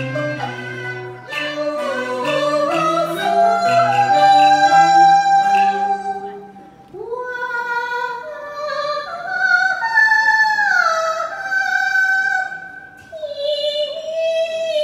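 A woman singing Cantonese opera through a stage microphone, with instrumental accompaniment under her for roughly the first half. From about seven seconds in, her voice carries on almost alone in long held notes that slide between pitches.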